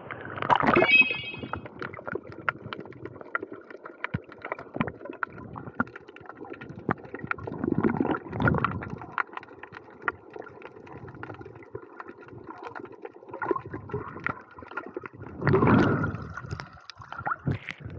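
Underwater sea sound heard through an action camera's microphone beneath the surface: muffled gurgling and water movement with a constant crackle of small clicks. There is a louder splashing rush about a second in as the swimmer ducks under, another around eight seconds, and a burst of bubbling around sixteen seconds as he breathes out bubbles.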